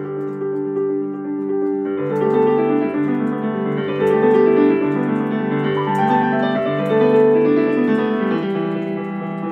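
Yamaha digital piano playing a solo piano piece: held notes at first, then about two seconds in a busier, louder passage of quick notes over a sustained bass.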